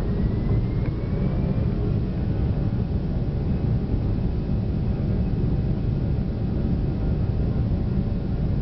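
Airbus A340-300 on its takeoff roll, heard inside the cabin: a loud, steady, deep rumble of its four CFM56 engines at takeoff thrust as the airliner speeds along the runway, with a thin whine rising in pitch over the first couple of seconds.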